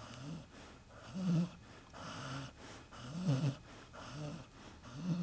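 Sleeping dog snoring: a loud, buzzing snore about every two seconds, with a softer breath between them.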